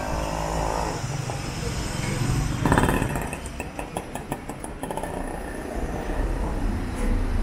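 Street traffic with motor vehicle engines running. About three seconds in, a vehicle gets louder, followed by a quick run of ticks lasting about two seconds.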